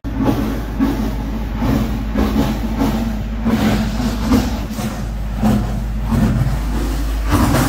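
Lightweight concrete mix pumped through a hose and pouring out of the outlet onto a heap in irregular wet surges, over a steady low hum from the pumping machine.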